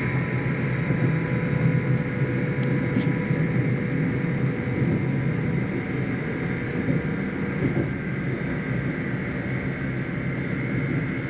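Passenger train running, a steady rumble with a few unchanging tones over it.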